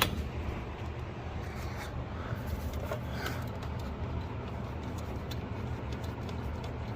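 Steady low hum with an even background rush, with a few faint small ticks.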